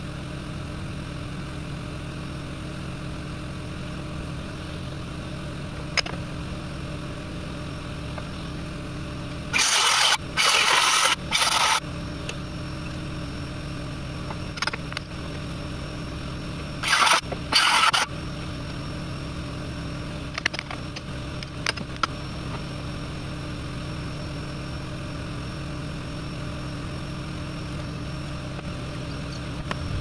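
Portable generator engine running steadily. About ten seconds in there are three short loud bursts of noise, and two more about seven seconds later.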